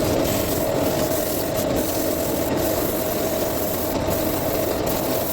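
Wood lathe running steadily, with 150-grit sandpaper rubbing against the spinning cedar workpiece: a constant motor hum with a rubbing hiss over it.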